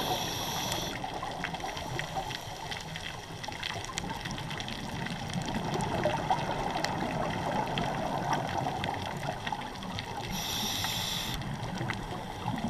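Underwater sound picked up through a camera housing: a scuba regulator hisses on two inhalations about ten seconds apart, with steady bubbling water noise in between.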